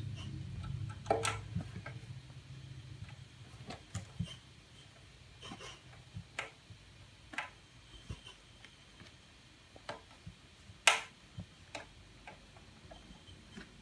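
Small scattered clicks and taps of machine screws and a small wrench being fitted against the expansion panel on the back of a hardware sequencer, as the panel is screwed in place. The clicks come every second or so, with one sharper click about eleven seconds in the loudest.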